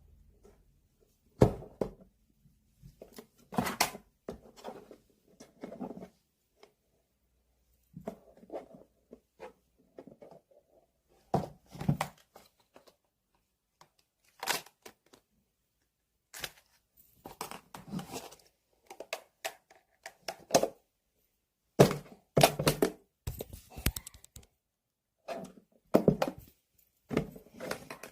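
Irregular close-up handling sounds: sharp taps and knocks mixed with short rustling and tearing, in uneven clusters with pauses between them.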